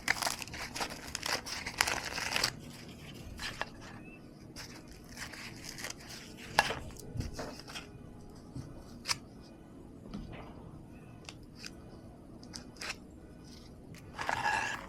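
Close-miked crunching and crackling of crisp pita chips loaded with salad being bitten and chewed. There is a dense run of crunches in the first two and a half seconds and again near the end, with scattered sharp crackles between.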